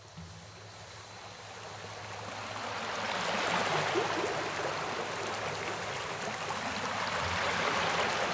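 A steady rushing noise, like running water, fading in from silence over the first few seconds and then holding.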